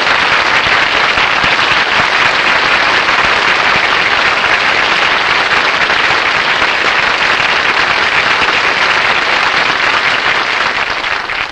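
Studio audience applauding steadily after a song, dying down near the end.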